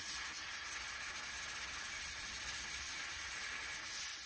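Oxygen-fuel hand torch flame hissing steadily as it heats a cast-aluminum part, bringing the metal up to the brazing rod's working temperature.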